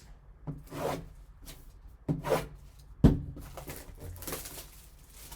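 Hands handling and sealing card packaging on a table: scattered rustling and scraping, with one sharp knock about three seconds in.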